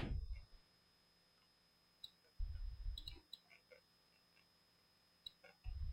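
Faint computer mouse clicks, a few scattered single clicks, with two short, low, dull rumbles of desk or mouse handling, one about two and a half seconds in and one near the end.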